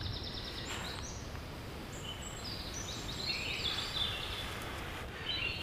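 Several songbirds singing in woodland, with short high chirps and trills overlapping throughout, over a steady low rumble of breeze.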